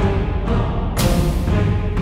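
Dramatic background music with a heavy low rumble and a sharp hit about a second in.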